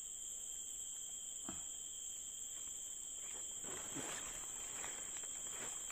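Steady high-pitched drone of insects, with faint rustling and a light knock or two, the rustling busiest around four seconds in.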